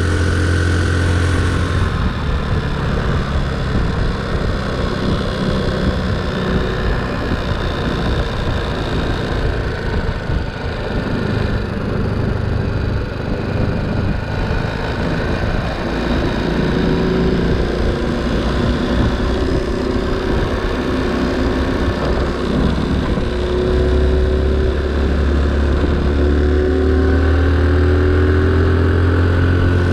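Honda C90 step-through motorcycle's small single-cylinder engine running while riding along the road, its pitch shifting with the throttle and climbing in the later seconds.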